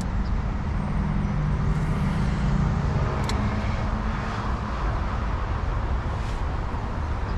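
Steady road traffic noise, vehicles passing over a road bridge, with a low engine hum in the first half and a swell as traffic passes around the middle. A short click about three seconds in.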